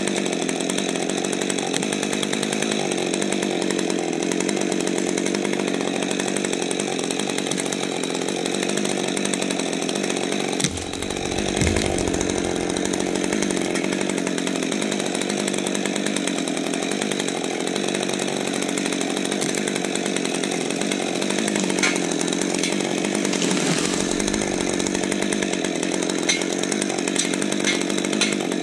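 Husqvarna 550 XP Mark II chainsaw idling steadily, with no revving. There is a dull thump about a third of the way in and a few sharp clicks near the end.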